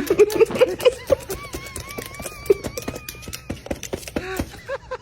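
Parrot making rapid clicks and short squeaky chirps, with a thin wavering whistle in the middle.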